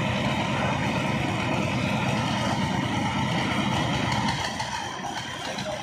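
Engines of two concrete mixers running steadily, with the drums turning. The deep engine noise drops off about four seconds in.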